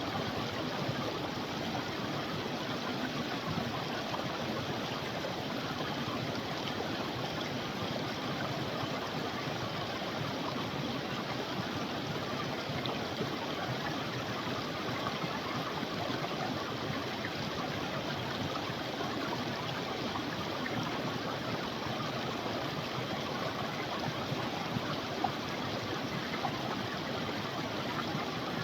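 A creek running steadily over rocks, an even rushing and babbling with no change in level.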